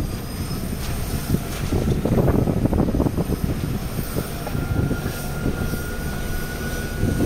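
Car driving along a rough road, heard from inside the cabin: a steady low rumble of tyres and engine that grows rougher and louder for about a second, around two seconds in. A faint steady high whine runs through the second half.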